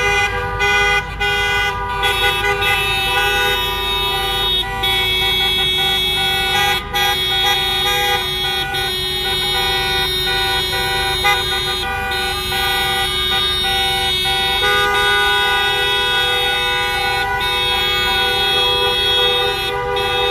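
Many car horns honking at once in long, overlapping held tones, with traffic running underneath.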